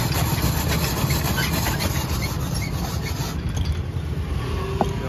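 Hand-cranked ice-shaving machine grinding a block of ice into fine shavings: a steady rasping scrape that fades out about three seconds in as the cranking stops.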